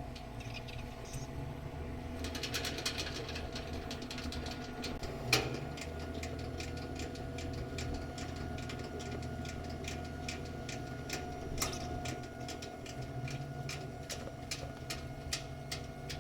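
Heavy diesel machinery running with a steady low drone and hum, overlaid from about two seconds in by rapid, regular ticking, with a sharp knock about five seconds in.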